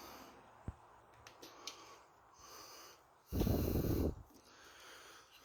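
A few faint clicks, then a short, loud puff of breath blown close to the microphone about three seconds in.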